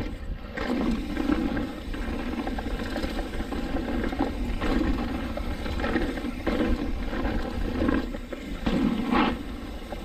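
Mountain bike riding fast down a dirt forest trail: a steady low rumble of wind on the microphone and tyres on the trail, with short rough bursts every second or so.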